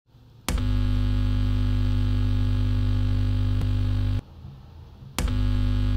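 A worn-out amplifier's mains buzz. It comes on with a click about half a second in and holds steady, cuts out for about a second shortly after four seconds, then returns with another click.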